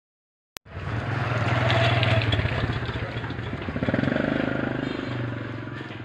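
A click about half a second in, then a vehicle engine running close by with a steady low hum. It swells twice and eases off near the end.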